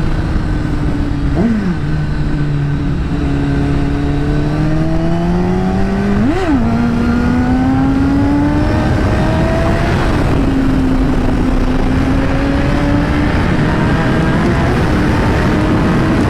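2010 Kawasaki Ninja ZX-10R's inline-four, breathing through an Akrapovič carbon exhaust, running under way. Its engine note rises and falls with the throttle, with two quick sharp blips, one about a second and a half in and one about six seconds in, over steady wind and road rush.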